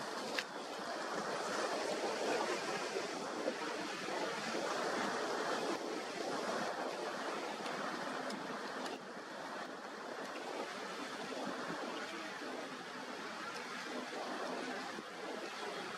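Steady rush of ocean waves and surf, with wind. Underneath, the faint drone of a motorboat's outboard engines as it runs through the chop throwing spray.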